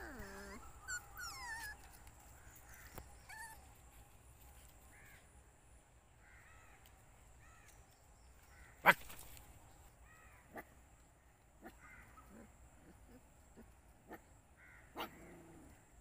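Short animal calls repeating every second or two, starting with a falling whine, and a single sharp click about halfway through, the loudest sound.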